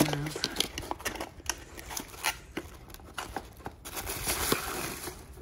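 A small cardboard box being opened by hand: irregular clicks and scrapes of the flaps and box, then wrapping paper rustling inside as the part is pulled out.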